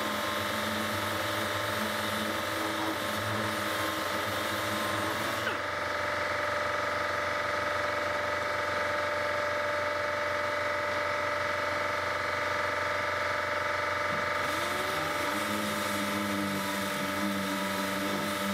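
Air-powered orbital sander running against body filler on a truck's sheet-metal side panel, with a steady machine hum under it. The sanding hiss stops for several seconds in the middle while the hum continues, then comes back near the end.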